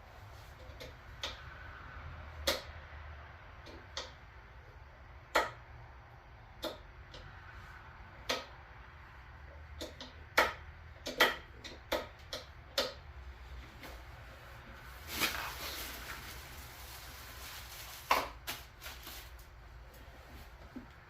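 Scattered knocks and clunks of heavy lathe parts being handled and set down, with a brief scraping noise about fifteen seconds in, over a steady low hum.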